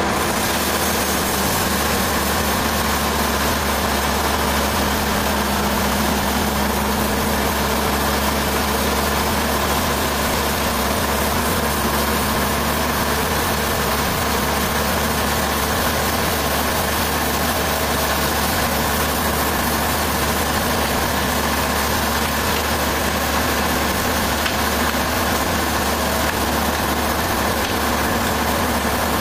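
Sawmill machinery running steadily: an even, unbroken drone with a strong low hum and a constant hiss over it.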